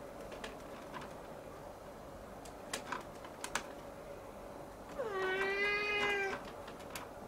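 Siamese kitten giving one long meow, about five seconds in, that dips in pitch at the start and then holds steady. A few sharp clicks come a couple of seconds before it, over a faint steady hum.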